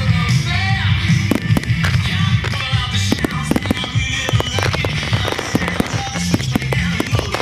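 Fireworks shells bursting and crackling in quick succession, many sharp bangs over loud rock music with a steady bass line.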